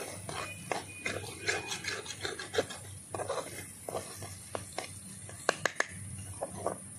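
A flat spatula scraping and turning a thick, drying fish-and-spice mash in a kadai, in repeated short strokes. Near the end come three sharp knocks of the spatula against the pan.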